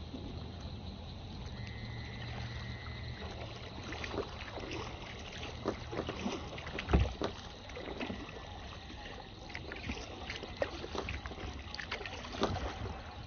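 Kayak being paddled on a pond: paddle splashes and dripping water, with frequent short knocks against the hull over a low steady rumble. The loudest is a thump about seven seconds in.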